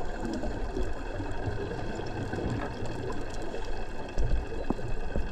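Muffled underwater noise picked up by a camera beneath the surface: a steady low rumble and hiss with scattered faint clicks, the rumble getting louder about four seconds in.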